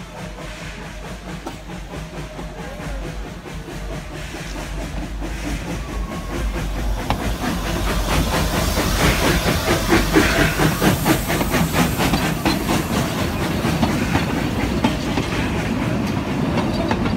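Coal-fired 2-6-2T narrow-gauge steam locomotive passing close with steam hissing. It grows louder to its loudest about halfway through, then the carriages roll past with their wheels clacking rapidly over the rail joints.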